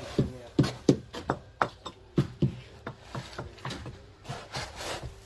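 A quick, irregular run of sharp knocks, about two or three a second, louder in the first half and fainter towards the end.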